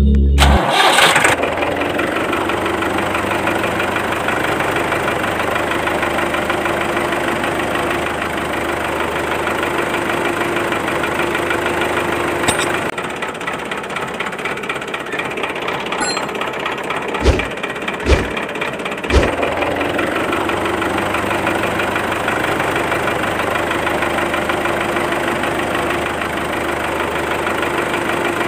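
A small engine runs steadily with a constant hum. Midway it goes quieter for several seconds, with three low thumps about a second apart, then the steady running comes back.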